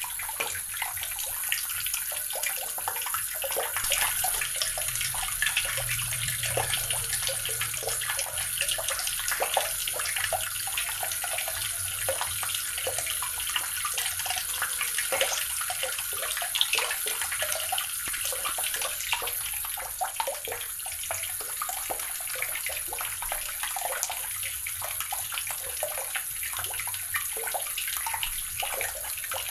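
Water running steadily from a tap, splashing and spattering into a basin or tub.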